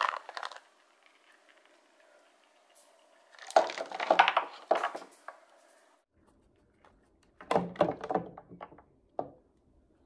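Round ice balls knocking and clunking against each other and a plastic bowl as they are handled and tipped out into a wooden tub of water, in three short bursts of knocks.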